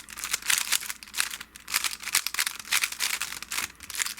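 Rubik's Cube being turned rapidly by hand: a fast, uneven run of plastic clicks and clacks as the layers snap round.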